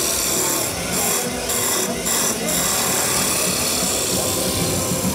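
Woodturning lathe spinning a wood blank while a gouge cuts it, a steady hissing shave of the chisel on the wood that breaks off briefly a few times in the first couple of seconds as the tool is lifted and set again. Music plays underneath.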